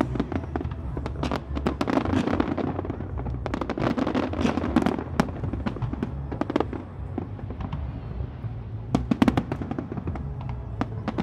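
Aerial fireworks display: many sharp bangs and crackles over a low rumble, densest a couple of seconds in and again near the end.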